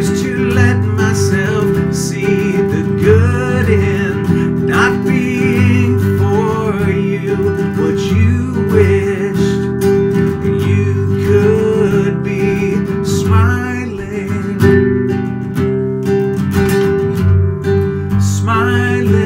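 Acoustic guitar being strummed, with a man singing along to it.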